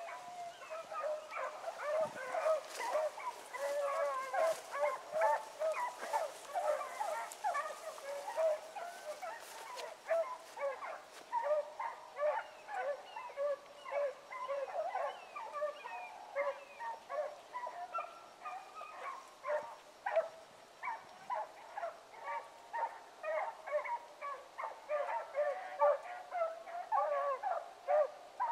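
Pack of rabbit hounds baying nonstop on a running rabbit's trail, several voices overlapping in a steady stream of short calls: the dogs are in full chase.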